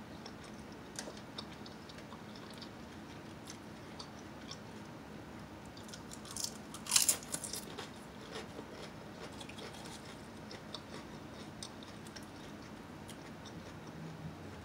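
Potato chips being bitten and chewed close to the microphone: scattered small crackles throughout, with a loud burst of crunching about seven seconds in.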